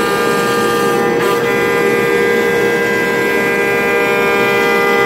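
CNC router spindle milling wood, scooping excess material out of an autoharp frame, with its dust-collection hose drawing off the chips: a steady, loud, high whine of several tones over a rushing noise.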